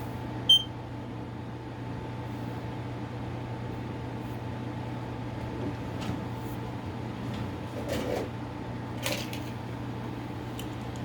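A smoke alarm's piezo sounder gives one short, high-pitched beep about half a second in, over a steady low hum. A few soft knocks and rustles of handling follow later.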